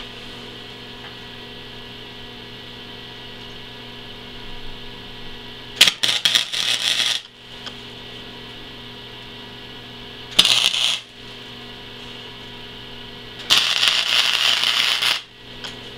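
Flux-core arc welding: three tack welds, each a burst of crackling, sputtering arc. The first starts about six seconds in and lasts just over a second, the second is a short half-second tack, and the third runs about a second and a half near the end. A steady electrical hum carries on between them.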